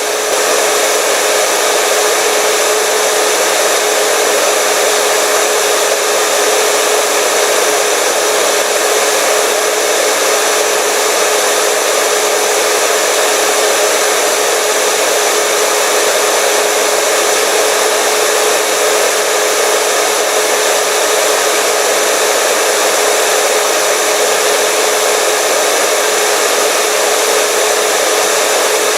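Hair dryer running steadily: a continuous loud blowing rush with a steady motor hum underneath.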